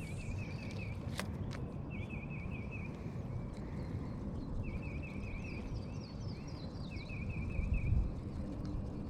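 A songbird repeats a short phrase of four or five quick slurred notes about every two seconds. A second, higher-pitched bird sings in the middle. A low rumble runs underneath, and there is a single sharp click about a second in.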